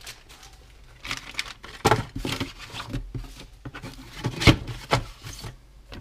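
Kit packaging being handled in a cardboard box: a plastic bag of small parts and paper sheets rustling, with several sharp knocks of parts against the box, the loudest about four and a half seconds in.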